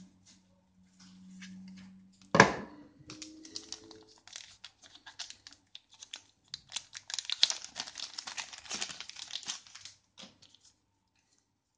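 Packaging being handled: a low hum at first, then a sharp knock a couple of seconds in with a short ringing tone, followed by several seconds of crinkling and rustling of plastic or paper wrapping.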